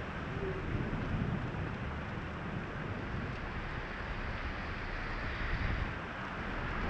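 Heavy rain and gusting wind on a parked car, heard from inside the cabin: a steady rushing noise with a low wind rumble underneath.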